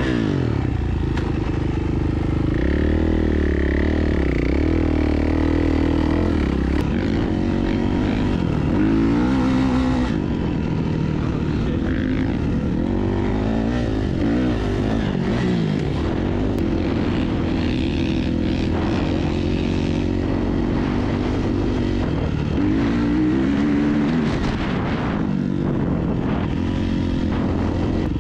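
Dirt bike engine running under way, its pitch rising and falling again and again with the throttle.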